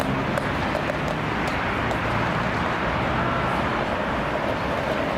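City street traffic noise: a steady wash of passing cars, with a vehicle engine humming low for the first couple of seconds.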